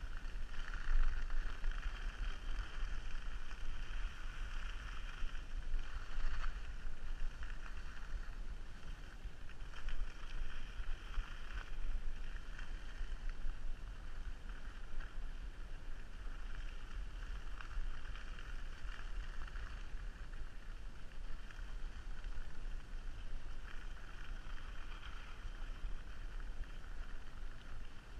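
Skis gliding over snow with a steady hiss that swells and eases a little, over a constant low rumble of wind on the microphone.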